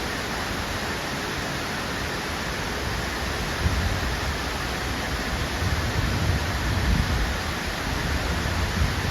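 Waterfall rushing as a steady, even roar of falling water, with low rumbling swells from about three and a half seconds in.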